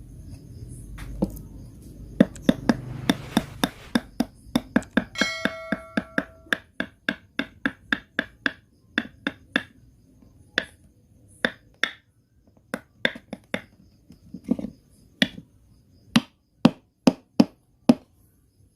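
A hammer striking wood again and again in runs of sharp taps, about two to three a second, with short pauses between runs; one blow a little over five seconds in leaves a brief metallic ring.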